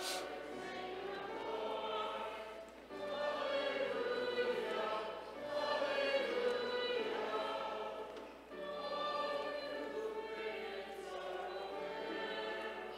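A congregation singing a hymn together in long, slow phrases, with short pauses for breath about three and eight and a half seconds in.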